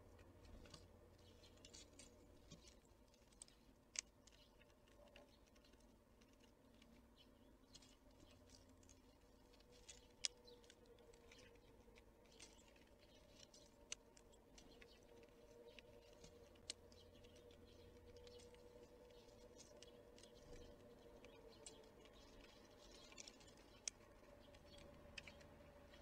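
Faint, scattered sharp taps and clicks, a few of them louder, with light scratching between them: small animals pecking and scrabbling at a woodland feeder. The rest is near silence.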